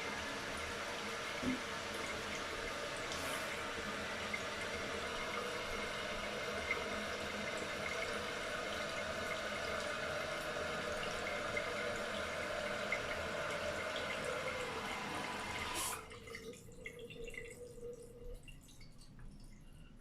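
New Korky toilet fill valve refilling the tank: a steady rush of water with a faint hum that cuts off abruptly about sixteen seconds in as the valve shuts, followed by faint trickling.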